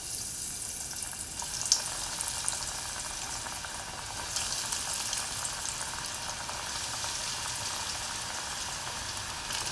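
Breadcrumb-coated fish fingers deep-frying in medium-hot oil: a steady sizzle with scattered crackles and one sharper pop a little under two seconds in.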